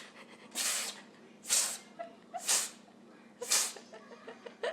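An animal giving short, breathy hisses through its nose, four in a row about a second apart, followed by a few faint clicks near the end.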